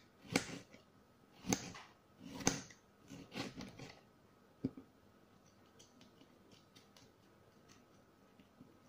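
Knife slicing a tomato on a glass cutting board, the blade knocking on the glass with each cut: about six sharp knocks over the first five seconds, then only faint ticks.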